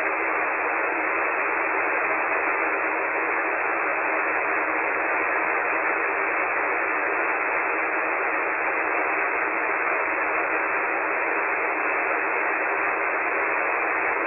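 Steady hiss of 40-metre band noise from a KiwiSDR web receiver tuned to 7.197 MHz lower sideband, with no station heard. The hiss is thin and cut off in the highs by the receiver's narrow sideband passband.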